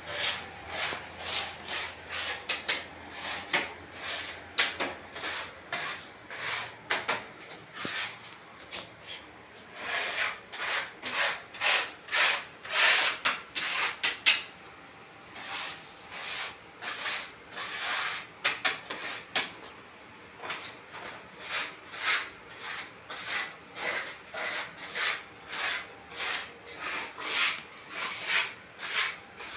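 Trowel scraping wet cement mortar in short, quick strokes, about two a second, with a brief break about halfway through.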